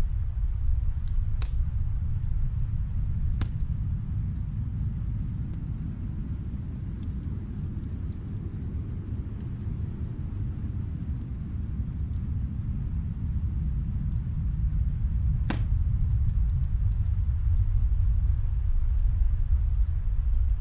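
Fireplace crackling: scattered small pops and snaps, three of them louder, over a low rumble that eases off in the middle and builds again toward the end.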